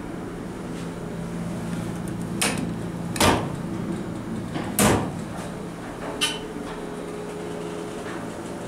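Several sharp knocks and clicks of the small metal door on the elevator car's emergency phone cabinet being opened and shut, four in all, over a steady low hum that sets in a second or so in as the Dover Impulse hydraulic elevator runs.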